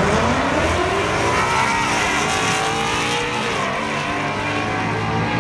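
Ford Mustang drag car launching and accelerating down the drag strip, its engine note climbing steadily in pitch for about three seconds before dropping back.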